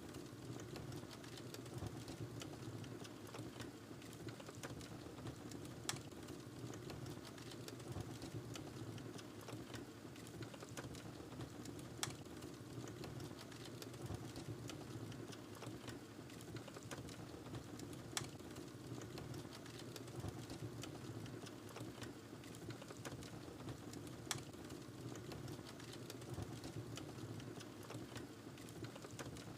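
Wood fire burning in a fireplace: a steady low rush of flames with light crackling and sharp pops from the burning wood every few seconds.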